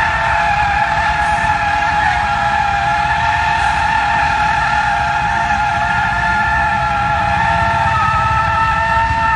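A small car's tyres scrubbing sideways along the asphalt as a heavy truck shoves it, giving a continuous high screech that wavers slightly in pitch. Under it is the low rumble of the truck and road.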